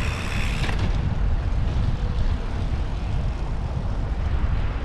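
Wind buffeting the microphone while riding a bicycle, a steady low rumble.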